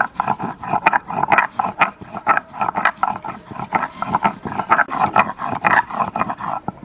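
Mustard seeds being ground on a flat stone slab (shil-nora) with a stone roller. The roller is worked back and forth in a steady rhythm of gritty, grating strokes, about two to three a second, crushing the seeds toward a paste.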